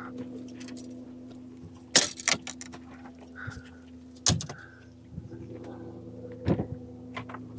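Several sharp knocks and metallic clinks of gear being handled on an aluminum boat's deck, over the steady low hum of an electric trolling motor.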